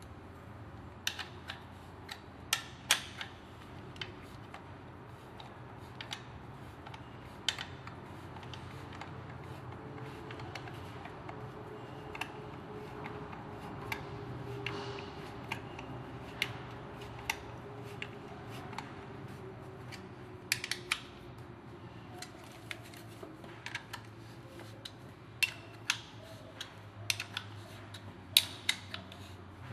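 Scattered sharp clicks and light knocks of plastic and metal parts of a Flex LW1509 wet polisher being handled and fitted together during reassembly of its gear head and handle bracket, with the loudest knocks near the end, over a faint steady hum.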